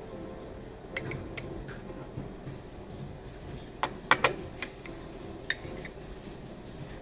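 Tableware clinking: a scattering of sharp clinks with brief ringing, the loudest three in quick succession about four seconds in, over a steady low room hum.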